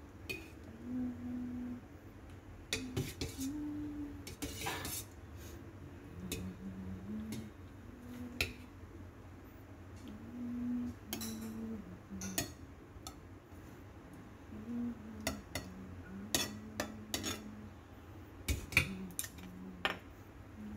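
Stainless steel ladle clinking and scraping against a steel pot and a ceramic plate while sauce is served, in scattered knocks and clinks, a few of them sharp and loud.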